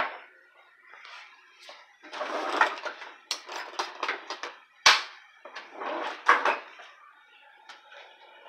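Kitchen handling sounds around a stainless steel pot of seasoned water: a sharp knock at the start and another about five seconds in, with bursts of scraping and rustling between, as a spoon is worked in the pot.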